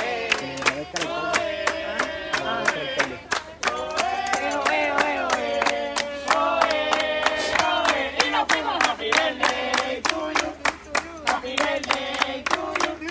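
A group of people singing together while clapping their hands in a steady rhythm, about three claps a second.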